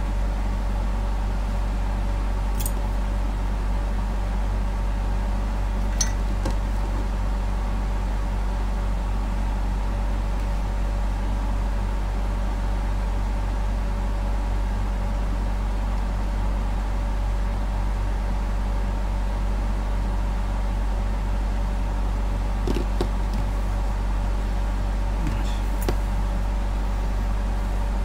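A steady low electrical or mechanical hum with several steady tones above it, at an unchanging level, and a few faint light clicks and taps as the resistor board is handled with tweezers and a soldering iron.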